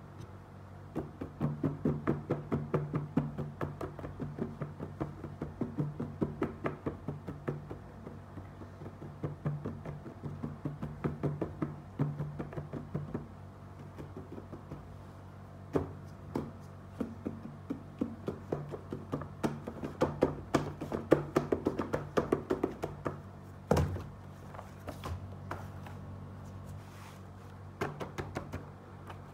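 Fingers tapping and knocking on a cardboard shoebox in quick runs of sharp taps, several a second, over a steady low hum. One louder knock comes about three-quarters of the way through.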